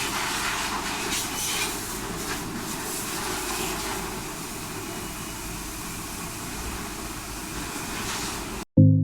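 Hero Impulse motorcycle being ridden, its engine mixed into heavy, rough wind and road noise. The noise cuts off abruptly near the end, and synth music starts.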